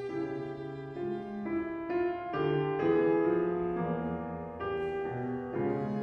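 Viola and piano playing together in a classical sonata: bowed viola notes held over piano chords, the notes changing about twice a second.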